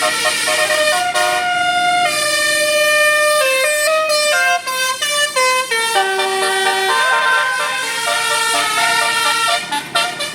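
Telolet basuri multi-tone bus horn playing a tune: loud held notes stepping up and down in pitch, several sounding together, broken into short stabs around the middle.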